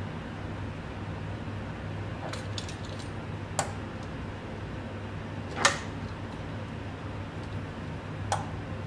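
A few sharp metallic clicks and knocks, the loudest just past halfway with a brief ring, as a brass fluted pastry wheel is handled and tapped against a wooden board, over a steady low hum.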